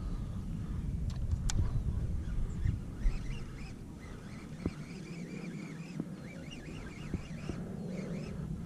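A flock of geese honking, many short calls overlapping, starting about three seconds in, over a low rumble of wind on the microphone.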